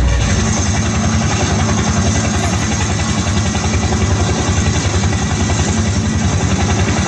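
An engine-like rumble played loud over a stage loudspeaker system, a fast, steady low pulsing with no music under it.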